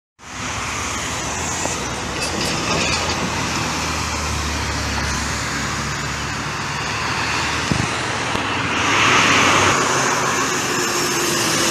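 Roadside traffic on a highway: articulated city buses and cars passing. A heavy engine hums low and steady through the first half, and a short hiss comes about nine seconds in.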